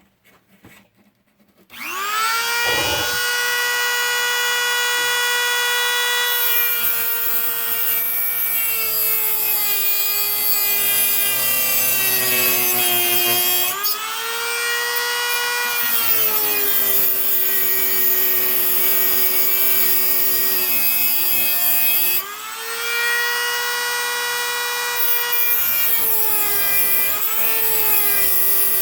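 Dremel rotary tool with a cutting wheel switching on about two seconds in and spinning up to a steady high whine as it grinds a slot into a broken screw seized in an aluminum window frame. Its pitch sags as the wheel bites under load. Twice it briefly slows and drops in level, then spins back up.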